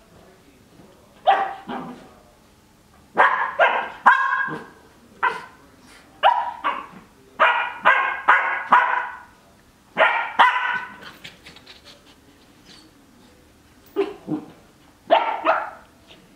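Cardigan Welsh Corgi puppy play-barking in short, sharp barks, in quick strings with brief pauses, then a quiet spell of about three seconds and a last couple of barks near the end.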